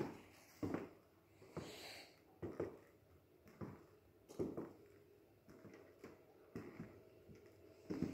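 Slow footsteps, a soft thud about once a second.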